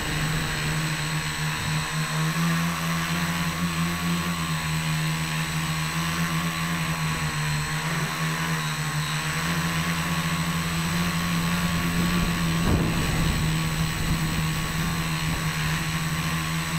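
Tricopter's three motors and propellers buzzing steadily in flight, heard close up through the onboard keychain camera's microphone. The pitch wavers slightly as the throttle changes.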